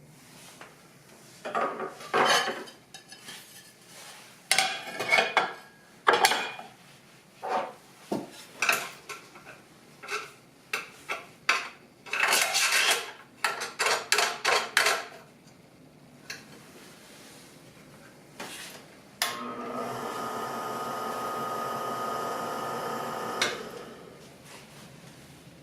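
Metal parts of a meat slicer clattering and scraping in a long series of irregular bursts as they are handled. Later the slicer's motor runs steadily with an even hum for about four seconds, then stops.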